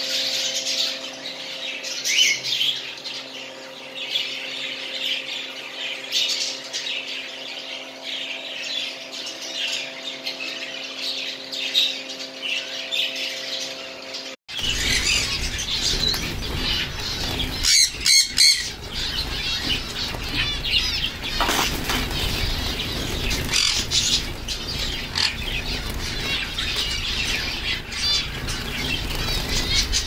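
Budgerigars chattering and squawking in a cage over a steady hum. After an abrupt cut, a flock of white zebra finches chirps continuously, with wings fluttering as birds fly about the aviary and a few louder bursts a few seconds after the cut.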